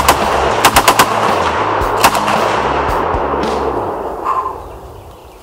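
Browning Automatic Rifle in .30-06 firing: a shot at the start, a quick burst of about four shots about a second in, and a single shot about two seconds in. Background music runs underneath and fades out near the end.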